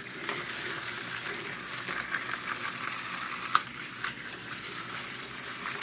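Many small plastic wind-up toys running at once: their clockwork mechanisms whirring and their feet clicking and tapping in a busy clatter, with a few sharper clicks.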